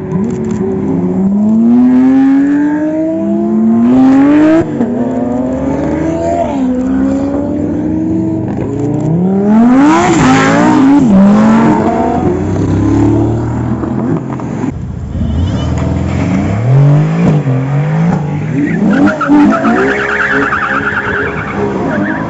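Supercar engines accelerating hard, the pitch climbing and dropping back again and again through gear changes. The loudest moment is a close pass about ten seconds in.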